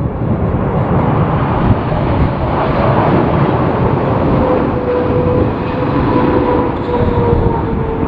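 Boeing 777-300ER's GE90 jet engines roaring on a landing approach, with a steady engine whine coming in about three seconds in. Strong gusty wind buffets the microphone under it, giving a rough, uneven rumble.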